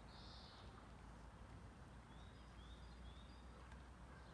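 Near silence: faint outdoor ambience with a low steady rumble, a short high chirp near the start and a few faint high bird chirps around the middle.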